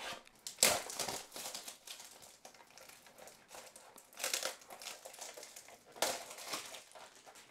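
Clear plastic shrink wrap crinkling as it is peeled off a cardboard trading-card box, in several uneven rustling spells, the loudest near the start.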